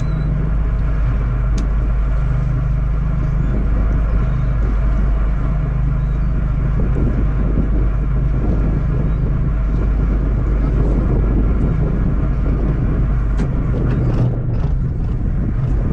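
Fishing boat's engine running steadily, a low hum with a constant pitch and no change in speed.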